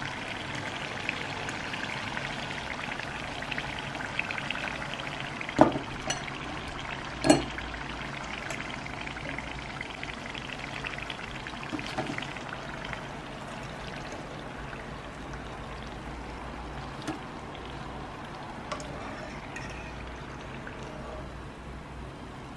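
Lumpiang Shanghai spring rolls deep-frying in a pan of oil, a steady crackling sizzle that eases a little toward the end. A few sharp clinks of a metal fork, the two loudest about six and seven seconds in.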